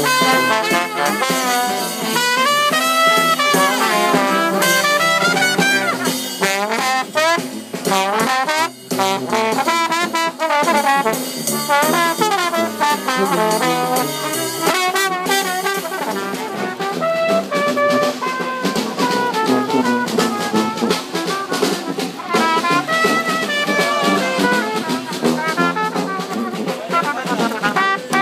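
New Orleans-style street brass band playing live: trombone, trumpet, saxophone and sousaphone in a lively tune over a snare drum with a cymbal mounted on it, the drum hits sharp and frequent throughout.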